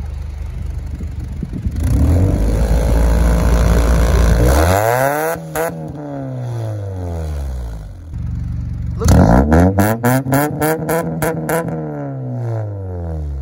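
Honda Accord exhaust blowing through a kazoo fart whistle taped into a cup on the tailpipe, the engine revved up and let back down twice so the buzzing pitch rises and falls with each rev. A quick flapping rattle runs through the start of the second rev.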